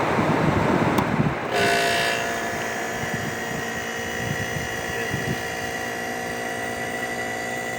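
Old Whirlpool window air conditioner: its fan blowing air, a click about a second in, then the compressor kicking on about a second and a half in with a steady humming drone. As the compressor starts, the fan's rush of air drops away because the fan nearly stops, which the owner takes to mean it probably needs a capacitor.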